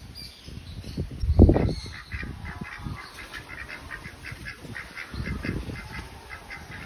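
White domestic ducks quacking in a quick, even series of about three to four quacks a second, over an intermittent low rumble of wind on the microphone that is loudest about a second and a half in.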